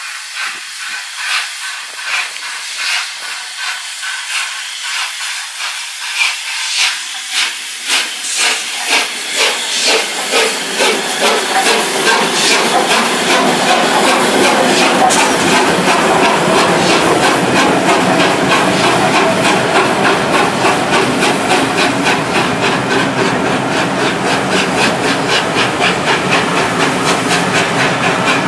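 Steam locomotive Tornado, an LNER Peppercorn A1 three-cylinder Pacific, pulling away under power with hissing steam. Its exhaust beats quicken from about one and a half to about three a second and grow louder as it accelerates past.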